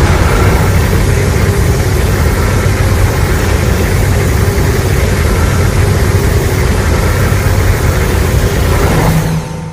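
Sound effect: a loud, steady, low rumble that dies away near the end.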